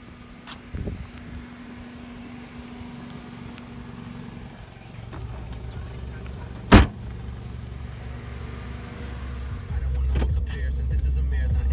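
A car's rear hatch slammed shut with a single loud bang, over the low steady hum of the car's engine running. The engine rumble grows louder near the end.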